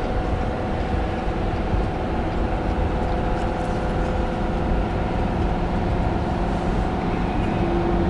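Cab-interior drone of a Ford F-350's 6.7-liter Power Stroke V8 diesel pulling at wide-open throttle under a 30,000 lb trailer load up a steep grade: a steady hum over road rumble.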